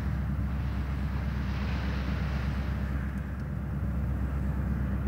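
Steady low rumble of a ship under way at sea, with a hiss of water that thins a little past the middle.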